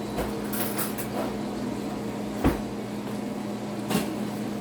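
Butter knife working in a jar of serrano pepper jam: a few light clicks, then two sharper knocks, the loudest about halfway and another near the end, over a steady kitchen hum.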